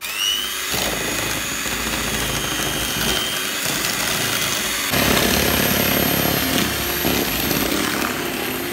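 Electric hand mixer switched on, its motor whining up to speed, then running steadily as its two beaters whisk eggs and sugar in a plastic bowl. About five seconds in it gets a little louder.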